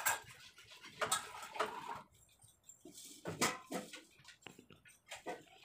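Steel pots and kitchen vessels being picked up and set down on a countertop: a series of irregular knocks and clinks, a few with a brief metallic ring.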